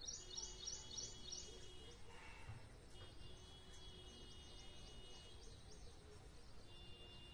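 Faint birdsong: a quick run of short high chirps in the first second and a half, then scattered lighter chirps over quiet outdoor background noise.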